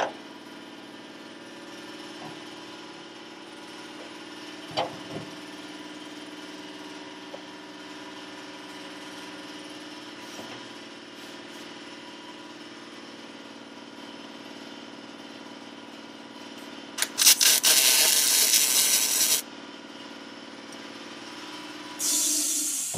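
Steady hum of shop machinery with a couple of light knocks, then a loud, crackling burst of MIG welding lasting about two and a half seconds, typical of a short bead or tack on the sheet-metal tub. A brief bright hiss follows near the end.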